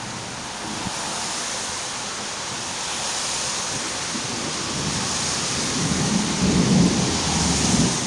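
Heavy rain hissing steadily in a thunderstorm, with thunder rumbling in low from about six seconds in.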